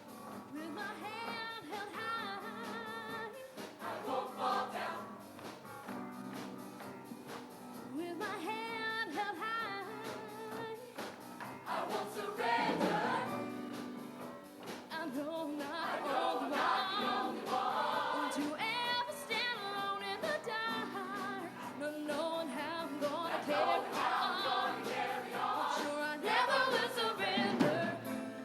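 Show choir singing in harmony, mixed voices, over a steady accompaniment.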